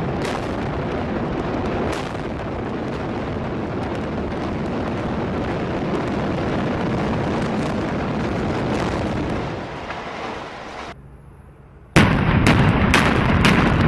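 Explosive demolition of a concrete stadium grandstand: a steady rumble of the collapse and falling debris that dies away about ten seconds in. About twelve seconds in, a new blast begins with a rapid string of sharp demolition-charge bangs, several a second, the loudest part.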